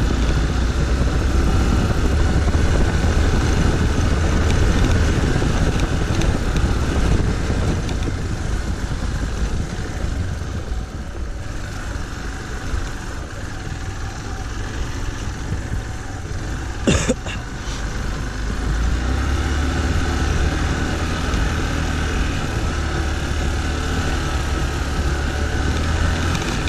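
Motorcycle engine running at low speed as the bike is ridden up a rough dirt and rock track, with a steady low rumble. A single sharp knock sounds about two-thirds of the way through.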